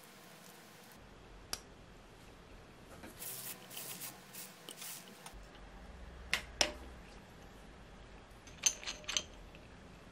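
Hand tools working on a bicycle crank arm: a crank puller and wrench scraping and clinking against metal. A scraping rustle comes in the middle, then two sharp clicks, and near the end a quick run of ringing metallic clinks.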